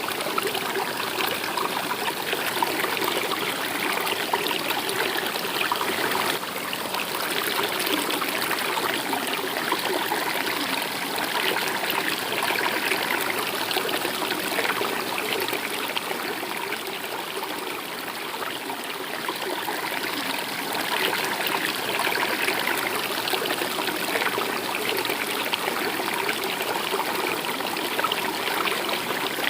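Water of a stream running steadily, a continuous trickling and splashing.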